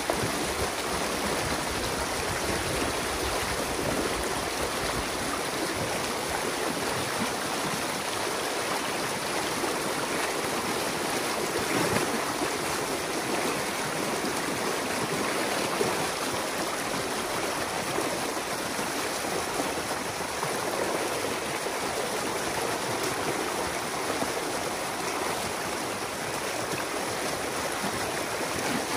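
Water from a beaver pond rushing through a breach cut in the beaver dam, a steady rush of a small stream pouring over mud and sticks as the flooded pond drains. A couple of slightly louder moments stand out near the middle.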